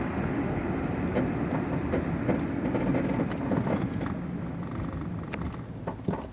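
2002 Honda Accord EX moving while turning, with a loud, continuous rattling and clunking from the front end. A shop put the noise down to the struts, and someone else to the bushings. The noise fades toward the end, with one sharp knock just before it stops.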